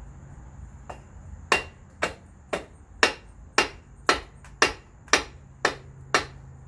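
Hammer blows on the shaft flange of a GM 8.25 front differential: about ten sharp metallic knocks, two a second, starting about a second and a half in. The shaft is being driven out of the housing and is not coming loose easily.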